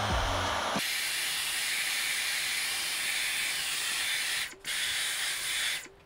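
Dyson V15 Detect cordless vacuum running with its mini soft dusting tool over a keyboard: a steady, high, airy hiss of suction. Background music stops about a second in, and the sound cuts out briefly twice near the end.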